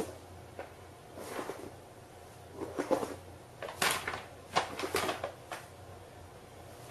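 A series of irregular knocks and bumps, about half a dozen, the loudest about three and four seconds in.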